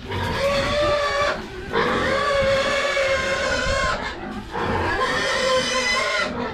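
Pig squealing: three long, high-pitched squeals, one after another with short breaks between.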